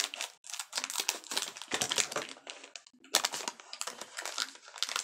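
Plastic snack wrapper crinkling and rustling in irregular bursts as it is cut open with scissors and handled, with short pauses.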